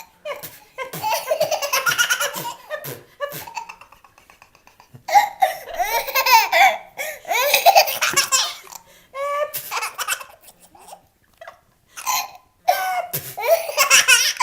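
Young child laughing hard in several high-pitched bouts, with short breaks for breath between them.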